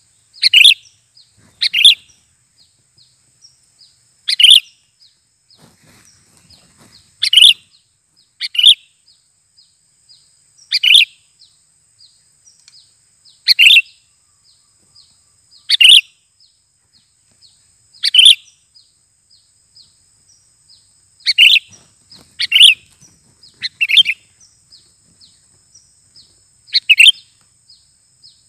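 Caged decoy sooty-headed bulbul (kutilang) calling, short loud calls repeated every two to three seconds. Faint, fast ticking and a steady high whine sound in the background.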